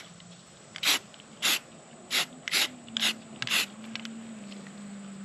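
Aerosol spray-paint can sprayed through a stencil onto a fabric backpack in about seven short hisses, spaced roughly half a second apart, stopping after about four seconds.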